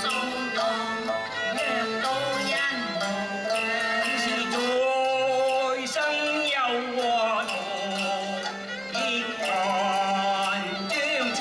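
Cantonese opera singing: a male voice sliding between held notes over a traditional Chinese instrumental accompaniment, with sharp percussion clicks from time to time.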